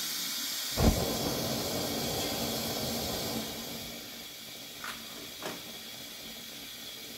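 Gas stove burner lit with a sudden whoosh about a second in, then the flame hissing steadily under the pan; the hiss drops quieter a few seconds later, as though the flame is turned down, with a couple of light clicks.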